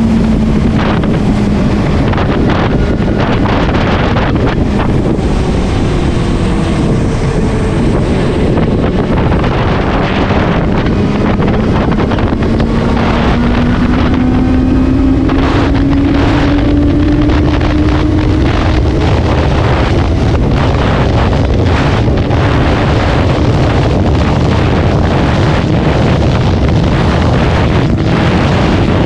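Heavy wind buffeting on the microphone from riding at speed, over the Benelli TNT 600i's inline-four engine. The engine's pitch drops at first, then climbs steadily for several seconds about halfway through as the bike accelerates, then holds.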